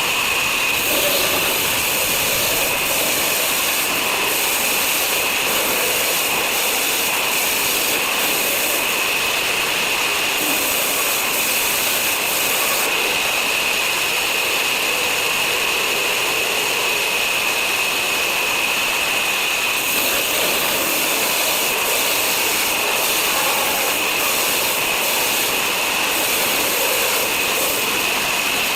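Power saw machine running without a break, a steady high whine over a constant rushing noise.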